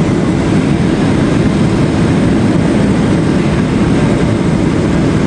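Steady low cabin roar of a Boeing 737-700 in flight, its CFM56 jet engines and the rushing airflow heard from inside the passenger cabin.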